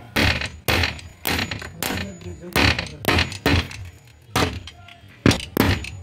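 Hammer blows driving fasteners through a steel door-latch plate into a wooden door: about a dozen sharp knocks at an uneven pace, with a short metallic clink on some strikes.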